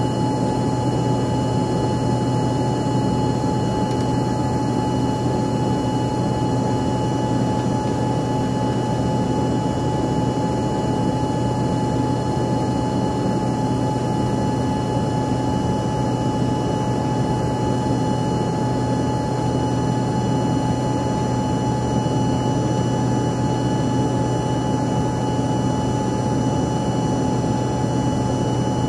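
Steady cabin noise inside an Embraer ERJ-145 in its climb, from its two rear-mounted Rolls-Royce AE3007 turbofans: an even hum with a thin steady whine above it.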